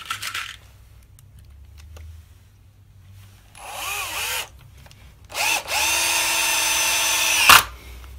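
Cordless drill-driver driving screws through a plastic kickboard clip into plywood: a short run of about a second, then a steadier run of about two seconds that cuts off suddenly.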